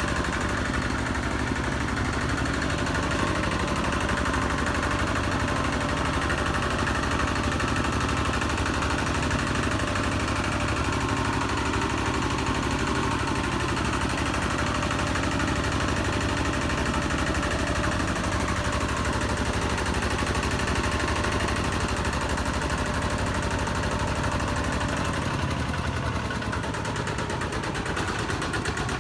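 Single-cylinder diesel engine of a Kubota RT-series two-wheel tractor running steadily while it drives along a flooded track. Its pitch drops slightly near the end.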